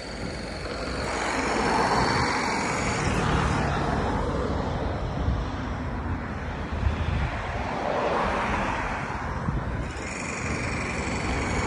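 Road traffic passing on a multi-lane road, swelling as vehicles go by about two seconds in and again around eight seconds.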